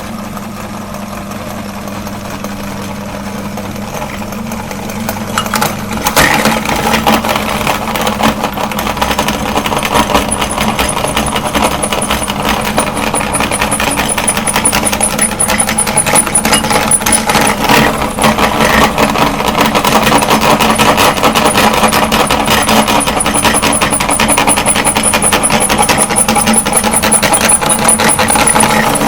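Electric meat grinder motor running with a steady hum; about six seconds in it gets louder, with dense rattling and crunching as material is forced through the grinder.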